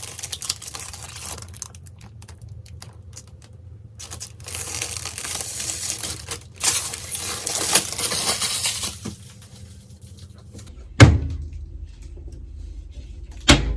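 Tearing and crinkling of plastic or paper in two stretches, then two sharp knocks near the end, the first the louder.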